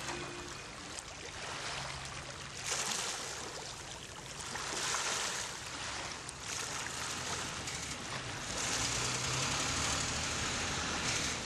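Harbour water washing and lapping, rising and falling in slow swells, over a low steady hum.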